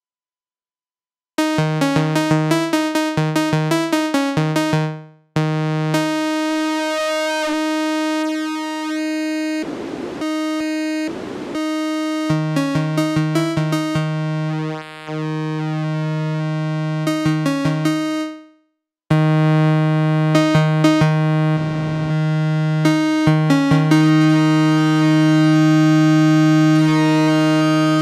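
Kilohearts kHs ONE software synthesizer playing a plain test patch: quick repeated notes and long held notes on two pitches an octave apart, starting after about a second and a half of silence. The tone briefly turns to hiss a few times as the oscillator settings are changed during the patch-building.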